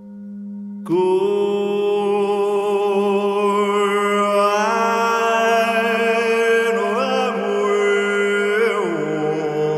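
A singing-bowl drone is joined about a second in by a loud, long-held chanted voice. The sung note stays fixed while bright overtones glide and shift above it, as in overtone singing, and the note steps up once midway and drops near the end.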